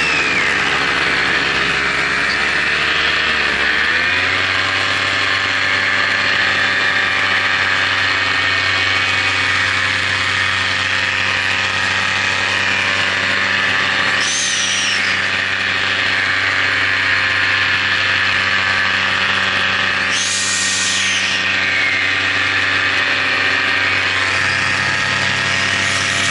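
Electric motors and propellers of a small camera-carrying RC aircraft whining steadily, heard close up from its onboard camera. The pitch dips briefly a few seconds in, and a short high whine rises and falls twice, near the middle and about three quarters through.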